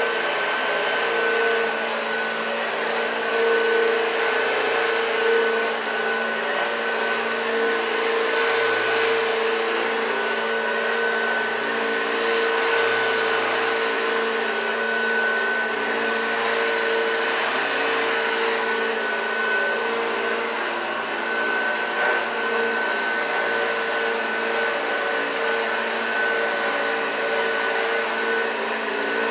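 1986 Hoover Junior U1206 upright vacuum cleaner running steadily, a constant motor noise with a steady whine.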